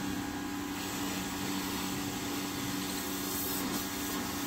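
A motor running steadily with an even, constant hum.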